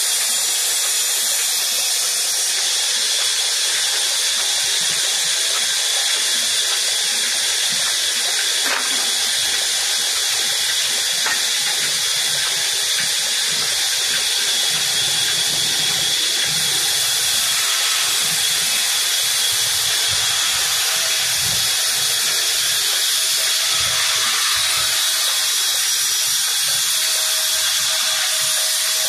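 Large vertical band saw ripping a long wooden beam lengthwise, a loud steady hiss of the blade cutting through the wood.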